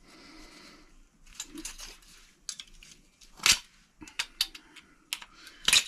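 Hand cutters snipping an aluminium part off a microwave magnetron: a run of small clicks and metal clatters, with a sharp snap about three and a half seconds in and another near the end.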